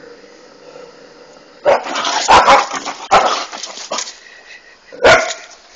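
Dog barking: a quick run of loud barks starting a little under two seconds in, then one more bark near the end.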